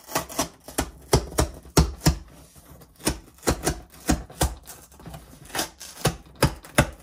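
Cardboard shipping box being opened and handled by hand, unhurried: an irregular run of sharp taps and knocks on the cardboard, about three a second.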